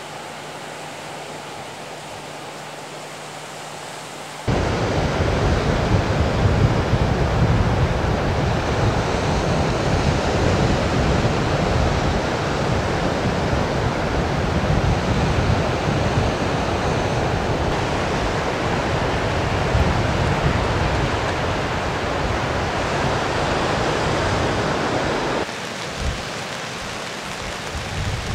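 Sea surf with wind rumbling on the microphone. It comes in suddenly about four seconds in, after a faint steady hiss, and drops to quieter surf near the end.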